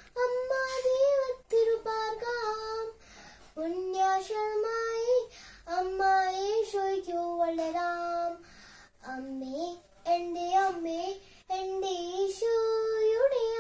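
A young girl singing solo and unaccompanied, in short melodic phrases with brief breaks for breath between them.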